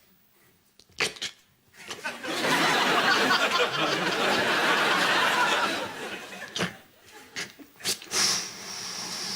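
Studio audience laughing for about four seconds, set off by a sharp click just before it. A few short, sharp sounds follow, typical of mouth-made sound effects.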